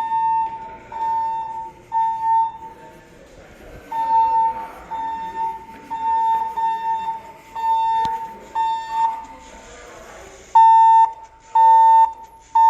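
Siemens voice-evac fire alarm speakers sounding their alert tone: repeated steady beeps, about one a second, with a short pause about three seconds in and the last three beeps louder. This is the tone that comes before the recorded evacuation message.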